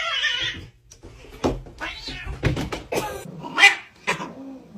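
Domestic cat meowing: a drawn-out call at the start, then a string of short meows.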